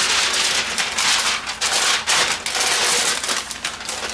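Plastic crinkling and crackling as it is handled, a dense run of quick rustles.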